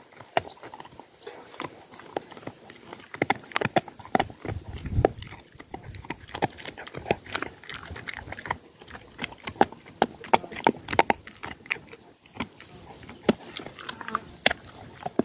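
Dog chewing, its teeth making irregular sharp clicks and crunches.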